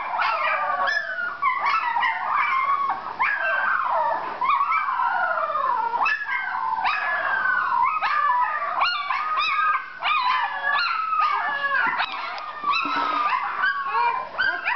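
Several very young puppies whining and crying without a break, their high, wavering squeals rising and falling and overlapping one another.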